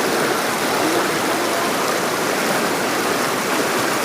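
Waterfall and river water rushing steadily, loud and close.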